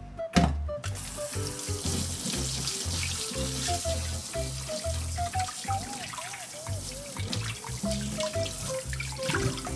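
A sharp knock, then tap water runs steadily into a sink from about a second in, over background music with a bouncy bass line and melody.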